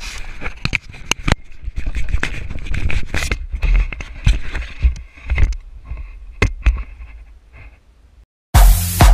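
Handling noise from a GoPro mounted on a canoe paddle: irregular scraping and sharp knocks on the camera as the paddle is picked up and moved about, dying down toward the end. Near the end, loud electronic dance music with a steady beat cuts in.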